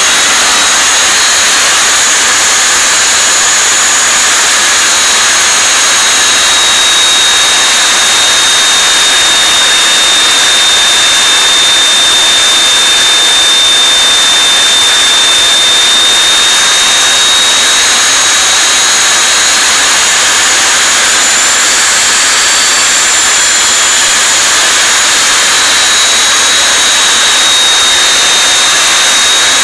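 Russian RU-19A-300 turbojet engine running steadily and loudly: a dense rush of exhaust and air noise under a high-pitched turbine whine that drifts slightly in pitch.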